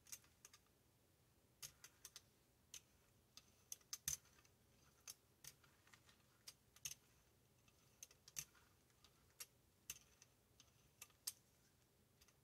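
Brayer rolling acrylic paint back and forth across a gel printing plate, giving faint, irregular clicks and ticks about twice a second.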